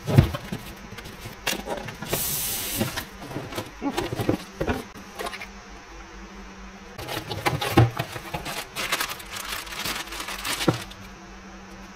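Unboxing handling noise. A cardboard box is opened and its contents pulled out, with a rasping scrape of cardboard about two seconds in. Later comes a stretch of crinkling and crackling as a plastic bag of parts is handled.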